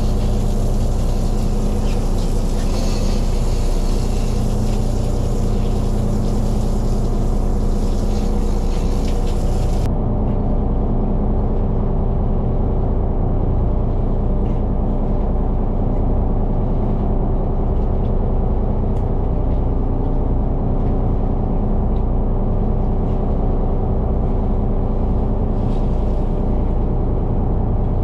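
Boat engine running steadily, a low drone with an even pitch. A high hiss lies over it for about the first ten seconds and stops abruptly.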